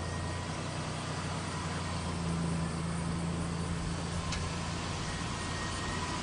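Ford Explorer's engine idling with a steady low hum. A single faint click sounds about four seconds in.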